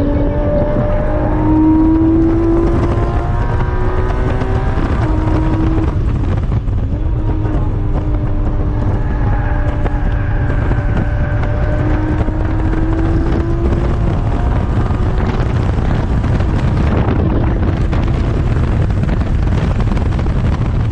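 Porsche 718 Cayman GT4's 4.0-litre flat-six with a modified exhaust, heard from inside the cabin while driven hard on track. It climbs in pitch and drops back several times as it revs up and comes off the throttle.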